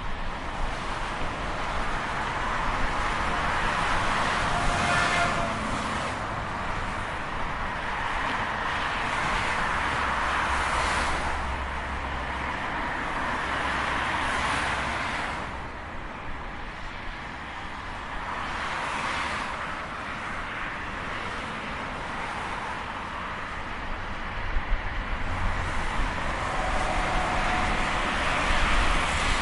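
Highway traffic: vehicles passing at speed one after another, a continuous tyre-and-engine rush that swells as each goes by and fades again.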